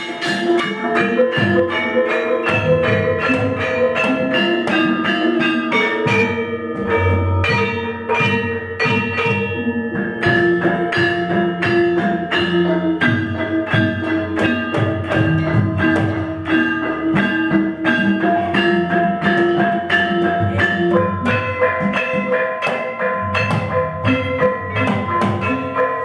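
Javanese gamelan ensemble playing at a brisk, even pulse: metal-keyed sarons and bonang kettle gongs struck several times a second over ringing gongs, with hand-beaten kendang drums underneath.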